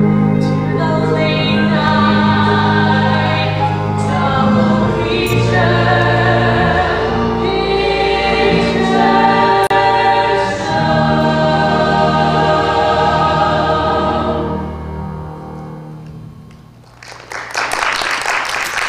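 Female lead singer and an ensemble chorus singing the last line of a rock-musical number over a band, ending on a held chord that fades out about 15 s in. Clapping starts near the end.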